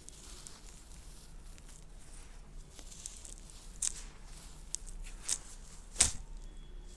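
Soft, dusty red dirt crumbling and crunching, with a steady faint crackle and a few sharper crunches, the loudest about six seconds in.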